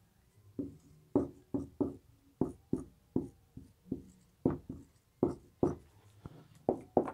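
Dry-erase marker writing numbers on a whiteboard: a string of short, irregular taps and strokes, roughly two a second.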